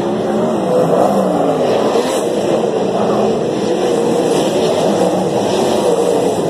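Winged sprint cars racing on a dirt oval, their 410 V8 engines running at high revs, several overlapping engine notes wavering up and down as the cars power through the turn and past.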